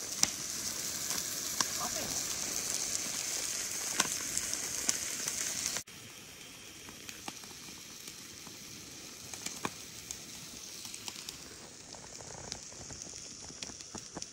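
Steak sizzling in a cast-iron skillet, a steady hiss with small crackles. About six seconds in it cuts off suddenly to a quieter hiss with occasional sharp pops and crackles from a wood campfire.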